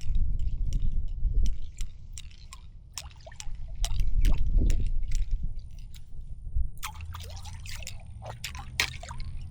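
Water dripping and trickling in small ticks, thickest near the end, over a low rumble that swells twice.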